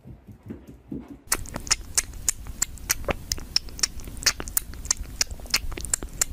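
Irregular sharp clicks and crackles, several a second, start a little over a second in and keep on.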